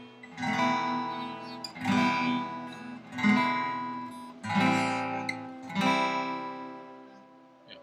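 Steel-string acoustic guitar: five slow single strums, one about every second and a half, each chord left to ring and fade, the last dying away near the end. The chords are the slow practice change between C and B7.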